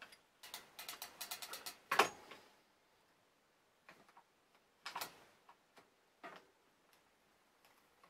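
Metal bike chain links clicking against the chainring and rear cogs as a new Shimano chain is put back on a mountain bike. A quick run of ticks in the first two seconds ends in a sharper click, followed by a few scattered clicks.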